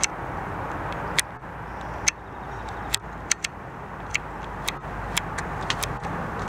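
Steady hum of distant city and freeway traffic, with about ten sharp clicks at irregular intervals standing out above it.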